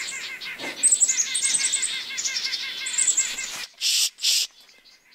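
Pishing, a person imitating a tufted titmouse's alarm call to draw in songbirds: a rapid run of squeaky, chattering notes, then two short hissing 'pssh' bursts about four seconds in.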